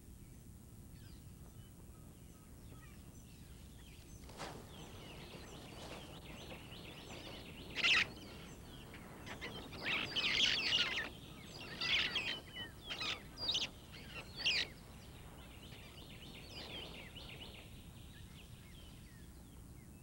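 Red-fronted parrots giving short, sharp calls, scattered at first, then a run of louder ones from about eight to fifteen seconds in. Faint chirping continues underneath.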